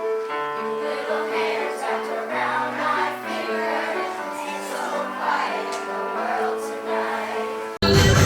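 A choir singing slow, sustained harmonies. Near the end it cuts off abruptly into louder, fuller music with a heavy bass.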